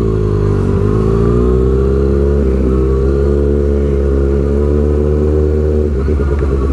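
Sport motorcycle engine running at low revs while riding slowly; the note dips slightly just before a second in, then climbs gently. The engine sound changes character about two and a half seconds in.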